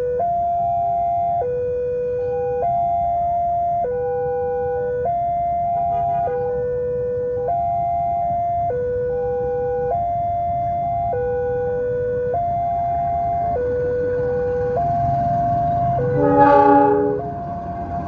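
Railway level-crossing warning signal: an electronic chime stepping back and forth between a higher and a lower note about every 1.2 seconds, steady and continuous. Near the end a low rumble builds, and a short, loud horn blast sounds about two seconds before the end.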